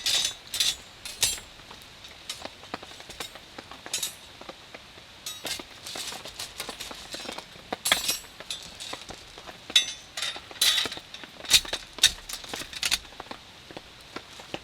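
Irregular clinks and knocks of camp cookware and utensils being handled, some of them short clusters of rattling clatter.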